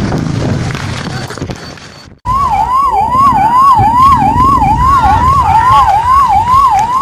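Loud noisy commotion for about two seconds, cut off abruptly, then an emergency siren in a fast wail, sweeping up and down about three times a second over a low rumbling background.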